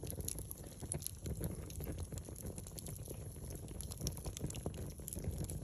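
Wood fire crackling, with many small irregular pops and snaps over a low rumble of flame.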